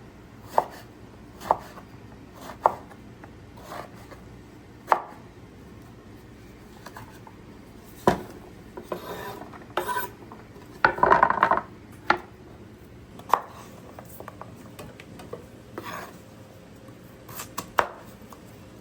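Knife chopping on a cutting board: single sharp strokes, irregularly spaced about one to a few seconds apart, with a stretch of scraping and rustling about halfway through.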